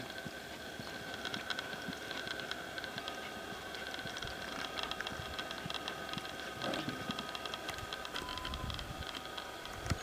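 A horse loping on soft dirt: dull hoofbeats under a dense patter of small clicks, with a sharper knock near the end as it comes to a halt.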